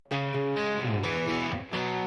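Rock song intro: distorted electric guitar playing chords, with no vocals yet.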